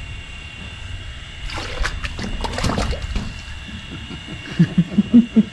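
An arapaima surging at the surface to take bait, splashing the water for about a second and a half, followed near the end by a quick run of loud low thumps.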